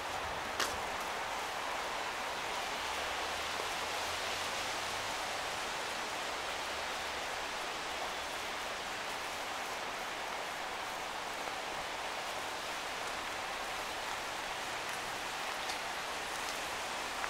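Steady rushing hiss of water running along a shallow foot-bath channel, with one short click about half a second in.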